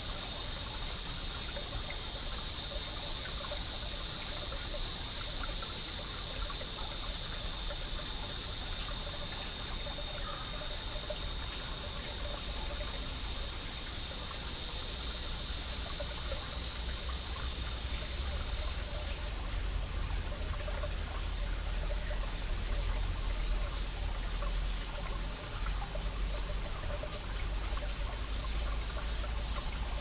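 Water trickling and splashing among rocks in a mountain stream, under a steady, high-pitched cicada chorus. The chorus cuts off abruptly about two-thirds of the way through, after which short, repeated high calls come through over the water.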